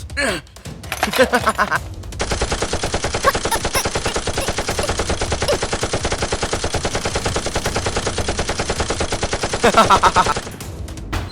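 Rapid automatic gunfire in one long, steady burst that starts about two seconds in and runs for roughly eight seconds before stopping.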